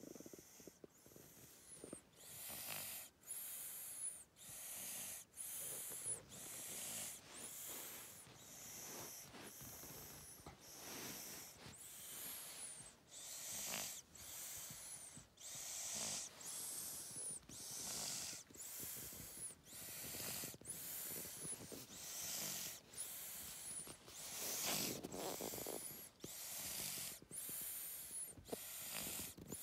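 Steady, rhythmic snoring, with breaths about a second apart, each with a breathy hiss.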